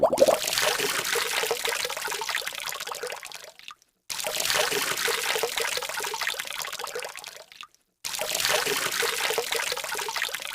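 Water splashing and trickling in a decorative fountain, a steady hiss heard in three stretches, each broken off by a moment of silence.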